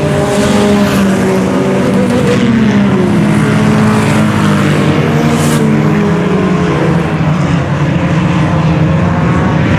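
Field of IMCA Sport Compact race cars running on a dirt oval, several engines revving up and down at once as they pass, loud and steady.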